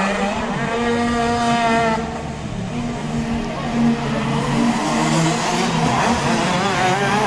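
Racing kart engines running hard. One holds a steady high note for the first two seconds, then the engine notes waver and climb again as karts come through the corner, from about five seconds in.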